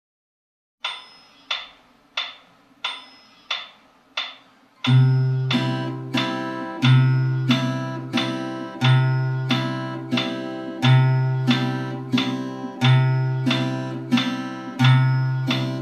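Six evenly spaced clicks count in. Then a steel-string acoustic guitar is fingerpicked in a 3/4 arpeggio pattern: a low bass note starts each bar about every two seconds, followed by a run of plucked treble notes, about six notes to the bar.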